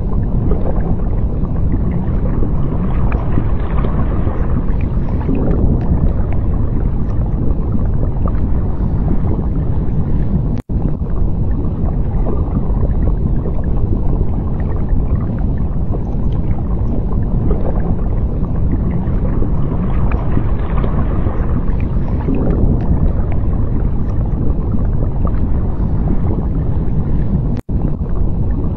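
Steady, deep underwater rumble with gurgling water, swelling and easing every few seconds. It drops out abruptly for a moment twice, about ten seconds in and near the end.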